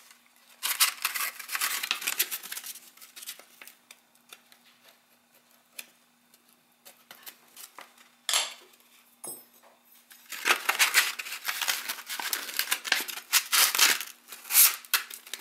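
Rustling and handling noises as tools and sandpaper are picked up and set down on a wooden board, with two sharp clicks about eight and nine seconds in. A faint steady hum runs underneath.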